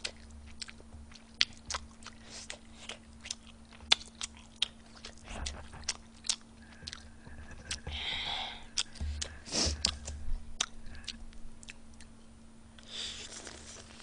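Close-up eating sounds: many sharp, wet mouth clicks and smacks while chewing tteokbokki and biting into a soft, moist flat dumpling.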